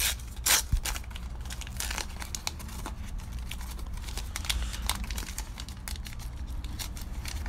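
Baseball card pack wrapper crinkling and tearing as a pack is opened by hand, a run of short crackles with a louder one about half a second in.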